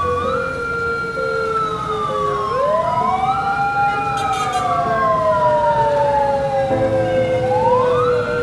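Several ambulance sirens sound at once in a slow wail, each rising and falling in pitch out of step with the others.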